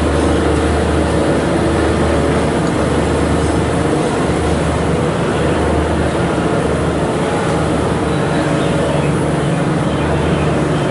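Diesel shunting locomotive running with a steady low engine drone as it hauls a steam locomotive and tender slowly through a rail yard.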